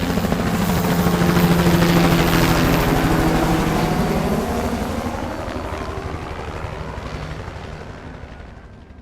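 Helicopter flying past, its rotor blades beating rapidly; it is loudest about two seconds in, then fades away as it moves off.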